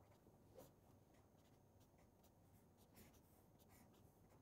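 Faint scratching of a marker pen writing on paper: a few short strokes, the clearest about half a second in and about three seconds in.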